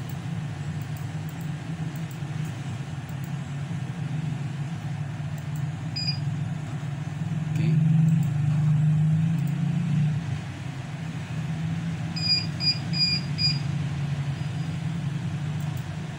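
Short high electronic beeps from a Dahua NVR as on-screen buttons are clicked: one about six seconds in, then a quick run of five about twelve seconds in. Under them runs a steady low hum that swells for a couple of seconds near the middle.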